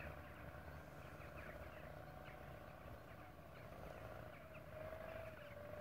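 Faint open-air ambience: a steady distant hum that drifts slightly lower in pitch, with scattered short bird chirps over a low rumble.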